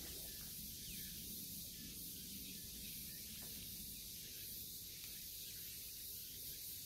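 Faint steady hiss with a low rumble underneath, with no distinct events: outdoor ambience.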